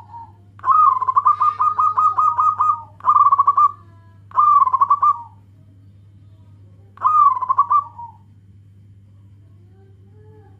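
Zebra dove (local perkutut) singing: a soft opening note, then a long rapid rattling phrase of about two seconds, then three shorter cooing phrases, the last a few seconds later. A steady low hum runs underneath.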